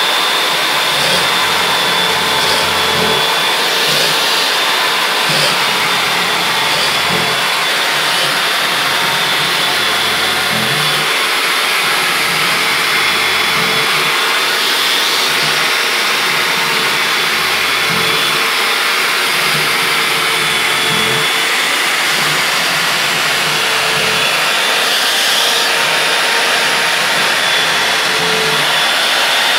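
Corded electric drill running steadily as it bores holes into a board, a continuous motor whine with a thin high tone above it.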